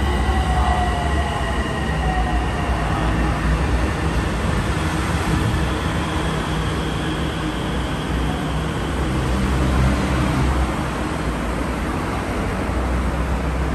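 Electric MRT Purple Line metro train pulling into an elevated station, heard through the platform screen doors. There is a steady low rumble of wheels and running gear, and the motors give a falling whine in the first few seconds as the train slows.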